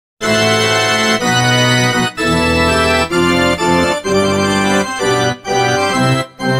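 A short musical sound-effect jingle on an organ-like keyboard: a run of held chords, each lasting about half a second to a second, with brief breaks between them.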